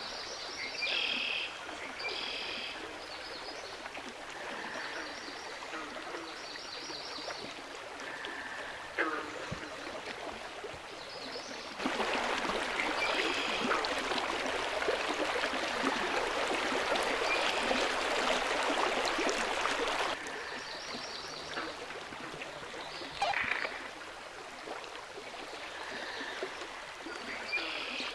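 Woodland ambience: birds chirping again and again over a soft steady hiss, with the rush of a running stream coming in loud for about eight seconds in the middle and then cutting off.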